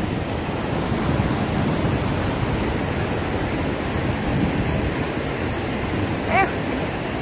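Steady rush of whitewater pouring over and between the rocks of a waterfall, an even roar that does not change.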